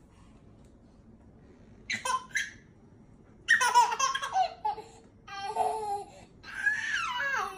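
A baby laughing: a short burst about two seconds in, then a longer run of laughs in quick pulsing bursts from about three and a half seconds on.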